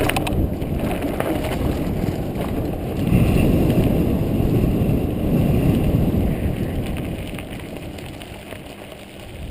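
Wind rushing over the microphone with a low rumble of a mountain bike rolling along the trail, louder in the middle and fading away over the last few seconds.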